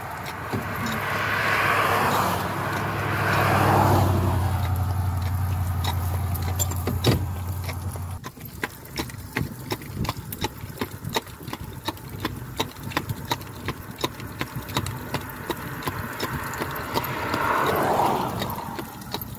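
Steady clip-clop of a Friesian-cross horse's hooves on asphalt as it pulls a buggy. Motor vehicles pass on the road: one in the first eight seconds with a low engine drone, and another near the end.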